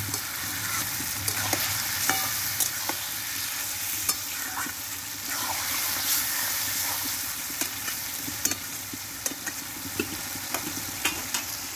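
Marinated mutton sizzling in hot oil in a metal kadai, stirred with a long metal spatula that scrapes and clicks against the pan at irregular moments. This is the dry sauté (kosha) stage, cooking off the raw smell of the garlic, onion, ginger and cumin.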